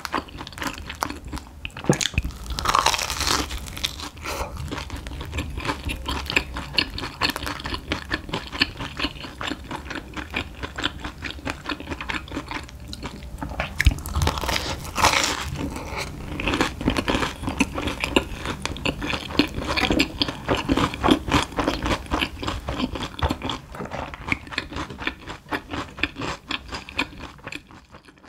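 Close-up crunching and chewing of a crispy fried Monte Cristo sandwich dipped in tteokbokki sauce, with loud crunchy bites about three seconds in and again about fifteen seconds in.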